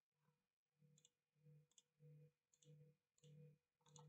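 Near silence with faint, regular clicks, a little under two a second, from a computer mouse as code is scrolled through.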